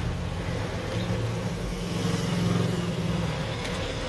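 A motor vehicle's engine running near the street-side stall, a steady low hum that grows louder about two seconds in and then eases off.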